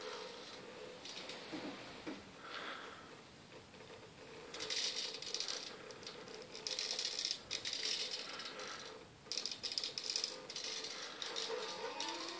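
NEMA17 stepper motors of a two-wheeled self-balancing robot giving a steady hum, with bursts of rattling about four seconds in and again through most of the second half as the robot moves.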